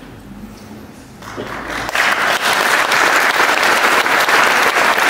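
Audience applauding. The clapping starts about a second in, swells quickly and then carries on, steady and loud.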